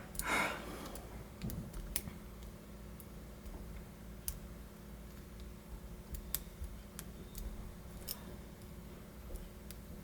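Faint, scattered metal clicks from a lock pick and tension wrench working the pin stack of a Master Lock M530 padlock fitted with spool and serrated security pins, with a brief rushing noise just after the start.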